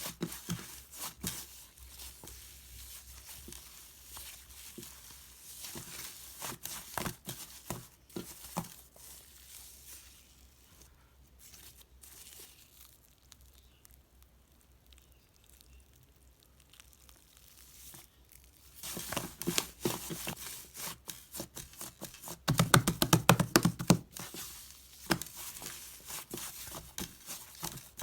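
White cloud slime being stretched, pulled apart and squeezed by hand, making a crackly tearing and crinkling sound. It goes quieter for several seconds around the middle, and the densest, loudest crackling comes about three quarters of the way through.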